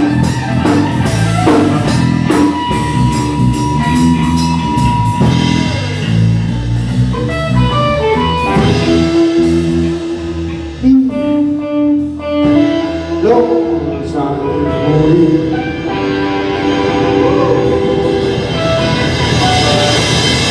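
Live rock and roll band playing an instrumental passage on electric guitar, bass and drum kit. The drums drop out for a couple of seconds about halfway through, leaving held guitar notes, then the full band comes back in.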